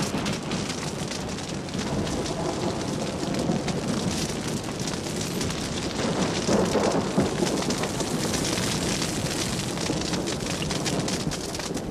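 Grass and bush fire crackling steadily, with a rumble of thunder swelling about six seconds in.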